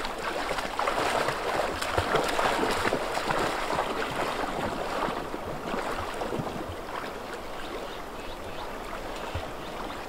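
Shallow, fast-flowing river rushing over stones, with splashing as a person and two golden retrievers wade through the current.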